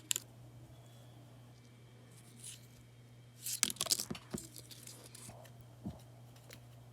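Small clicks, taps and rustles of craft pieces being handled on a table, with a quick cluster of them a little past the middle, over a steady low electrical hum.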